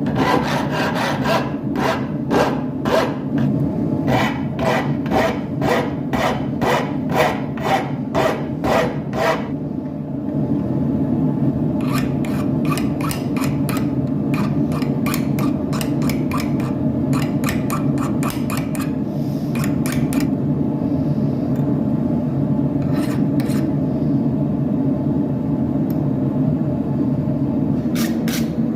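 Hand file rasping over a forged arrowhead in rhythmic strokes, about two a second, stopping briefly around ten seconds in, resuming, then trailing off into a few scattered strokes. A steady low rumble runs underneath throughout.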